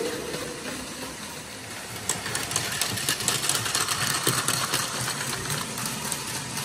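Battery-powered Plarail Advance toy trains running on plastic track: small electric motors and gearboxes whirring, with a quick, uneven clatter of wheels and rattling from about two seconds in.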